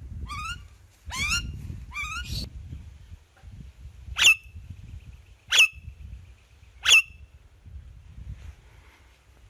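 Indian ringneck parrot calling: three short, rising, rasping chirps in the first two seconds or so, then three loud, sharp click-like notes about a second and a half apart, each dropping quickly into a brief whistle.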